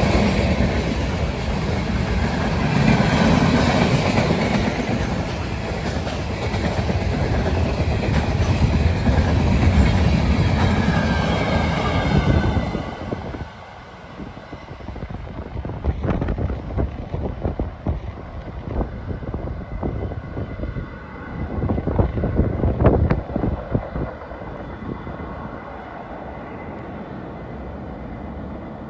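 Freight train cars rolling past close by, a loud steady rumble with wheel clatter. The rumble drops suddenly about 13 seconds in as the last car passes, leaving fainter, irregular knocking and clacking from the wheels as the train moves away.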